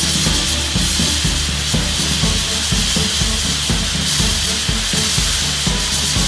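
Abrasive grit-blasting nozzle hissing steadily as it strips paint from a steel ship hull, over background music with a steady low beat.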